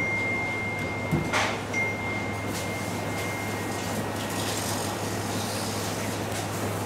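A live sea eel being handled on a plastic cutting board: a few short knocks and scrapes of the wet eel and gloved hand against the board over a steady low hum with a faint high steady tone.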